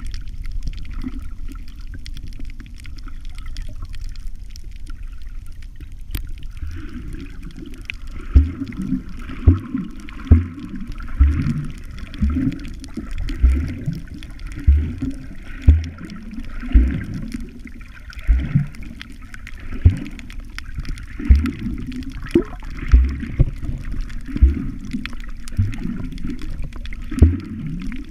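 Muffled underwater sound picked up through a camera's waterproof housing: water swishing and gurgling around the housing. From about eight seconds in there are low thumps roughly once a second.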